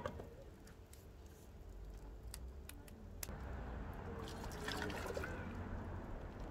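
Water poured from a small cup into a metal saucepan, trickling and splashing, building from about halfway through. A glass pot lid clinks down at the start.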